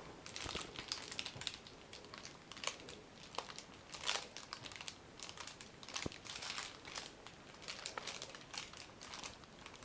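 Faint crinkling of plastic piping bags squeezed by hand, with scattered small crackles and ticks.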